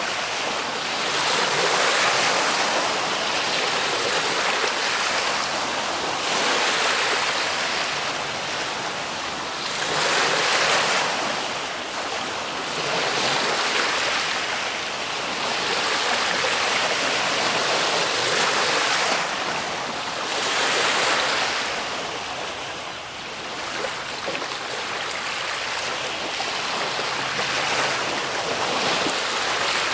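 Ocean surf: waves breaking and washing in, the hiss of water swelling and falling back every few seconds.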